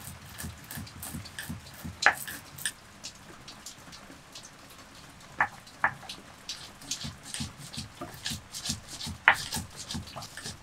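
Stone pestle pounding and grinding whole spice seeds in a stone mortar: a steady run of dull thuds with the dry crackle of seeds being crushed, and a few sharper clicks of stone striking stone.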